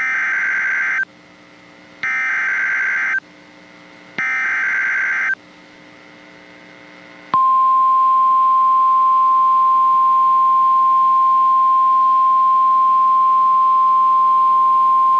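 NOAA Weather Radio Specific Area Message Encoding (SAME) header: three one-second bursts of warbling digital data, about a second apart. About seven seconds in, the steady single-pitch 1050 Hz warning alarm tone begins, signalling that a warning follows.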